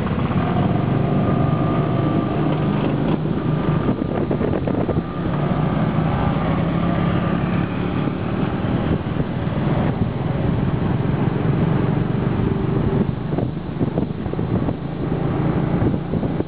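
Small motorcycle engine running as the bike pulls away from a junction and rides along, its pitch shifting with the throttle. Another scooter's engine runs close alongside. Wind buffets the microphone near the end.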